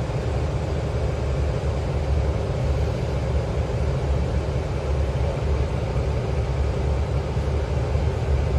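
Steady low rumble of a city bus in motion, heard from inside the passenger cabin: engine and road noise with no distinct events.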